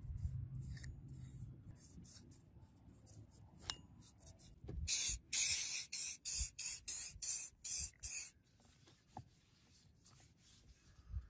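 Liquid sprayed onto a steel axe head in a quick run of about eight short hissing bursts, a little over two a second, beginning about five seconds in.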